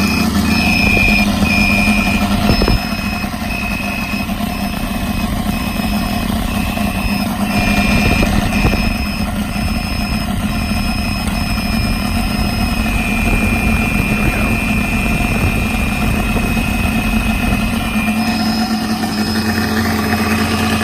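O.S. FR5-300 five-cylinder four-stroke glow radial model engine running steadily at idle, swinging a wooden 18x12 propeller and exhausting through a collector ring. A high electronic beeping repeats over it, from the ignition system's beepers.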